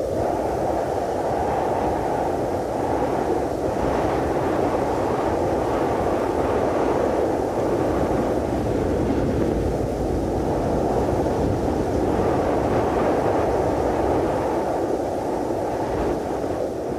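Cold wind sound effect: a steady rushing wind noise, heavy in the low and middle range with a low rumble, swelling and easing only slightly.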